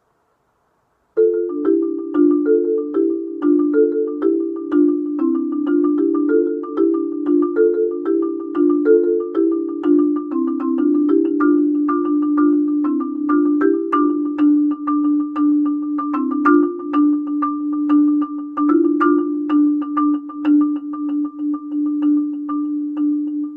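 Marimba played with four yarn mallets. After about a second of silence, a fast stream of rapidly repeated strokes moves among a few mid-register notes, then settles into a steady roll on mostly one note in the second half.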